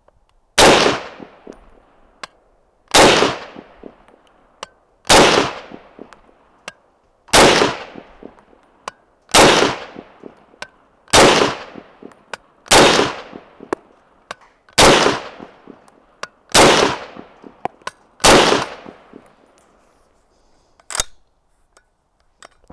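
M1 carbine firing ten rounds of .30 Carbine Magtech factory ammunition at a steady pace, about one shot every two seconds, each report ringing out. A single quieter sharp click follows about three seconds after the last shot.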